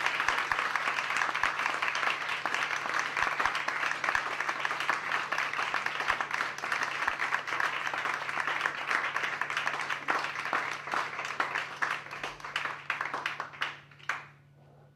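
Audience applauding: a dense, steady run of many hands clapping that thins out and stops near the end.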